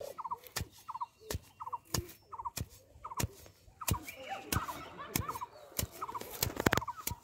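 A wooden stick jabbed repeatedly into grassy ground, giving sharp knocks about every half second to two-thirds of a second, loudest in a quick cluster about six and a half seconds in. Short chirping notes repeat between the strikes.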